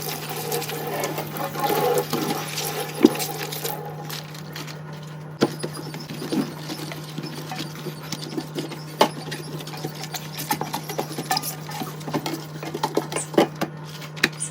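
Hand-washing dishes at a sink: a few seconds of running water, then scattered clinks and taps of dishes being handled, over a steady low hum.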